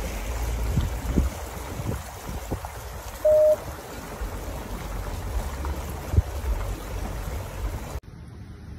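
Floodwater running and trickling in a flooded street, over a low rumble with a few thumps. A short, loud single-pitched beep about three seconds in, and a sharp click a few seconds later.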